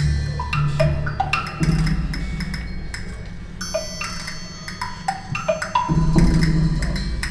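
Background music: a rhythm of short, pitched percussion notes over a low bass line, with a bright ringing tone held for about two seconds in the middle.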